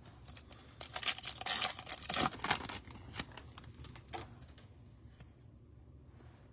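Trading cards being handled and slid against one another: a run of short scrapes, clicks and rustles for about three seconds, then only faint handling.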